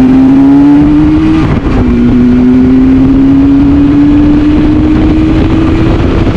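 Yamaha RD350 HT's two-stroke parallel-twin engine under hard acceleration. Its pitch climbs as it pulls, drops once about a second and a half in as it shifts up a gear, then climbs steadily again.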